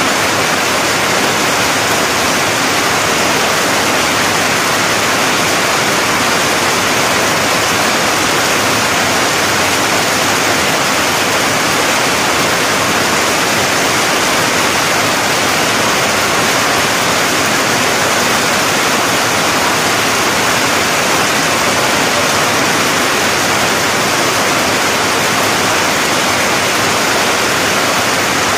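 Heavy storm rain falling steadily on trees and banana plants: a loud, even, unbroken hiss.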